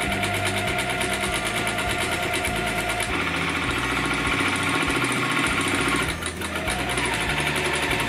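Electric domestic sewing machine running at a fast, steady stitch as it sews kimono fabric. The sound changes about three seconds in and dips briefly about six seconds in.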